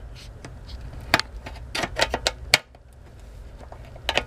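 Small hand opener biting its way around the rim of a sealed steel ammunition tin ('spam can'), giving a handful of sharp, irregular metal clicks and crunches as the lid edge is cut.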